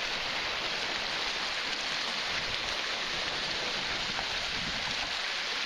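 Lake waves washing and splashing over shoreline rocks: a steady rush of water.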